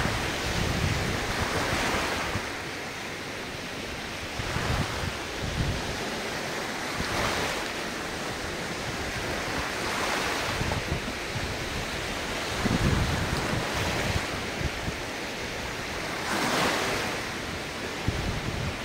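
Ocean surf: waves breaking and washing up the shore, a swell every two to three seconds over a steady rush, with wind buffeting the microphone.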